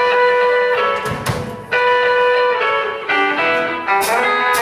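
Instrumental intro of a blues song: long held guitar notes with drum and cymbal hits, no singing yet.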